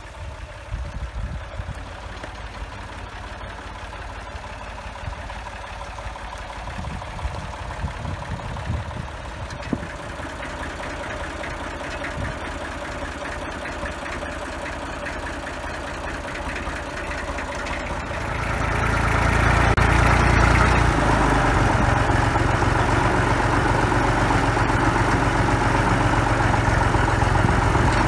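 Massey Ferguson 35 tractor's diesel engine running steadily. It is fainter at first, then much louder and closer from about two-thirds of the way through.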